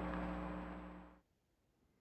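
Steady hiss with a low electrical hum that fades and cuts off just over a second in, leaving near silence.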